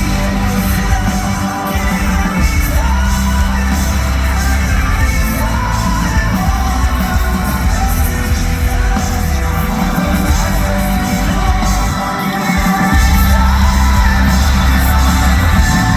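Rock band playing live with a singer: loud, bass-heavy music. About three-quarters of the way through, the bass drops out for a moment and comes back louder.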